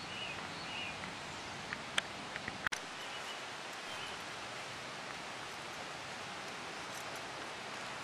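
Steady outdoor hiss with faint rustling from a handheld camera's microphone, broken by a few small clicks about two to three seconds in, the last with a brief dropout.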